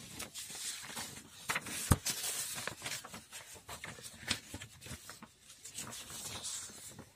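Sheets of paper being handled and slid over a table: rustling with several sharp taps, the loudest about two seconds in.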